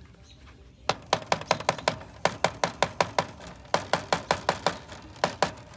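Budget automatic chicken coop door opener's gear clicking sharply against the sliding door's slotted strip as it lifts the door. The clicks come about five or six a second, in four bursts with short breaks. It is the sign of a gear that barely engages the door.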